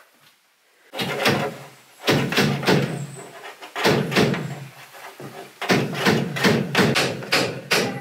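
Hammer blows on a nail in a wooden wall stud: a few heavier knocks, then a quick run of taps at about four or five a second near the end.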